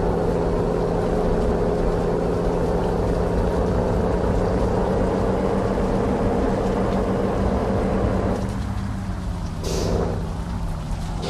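Heavy truck's diesel engine running steadily under way while hauling an excavator, with a short hiss of air near the end.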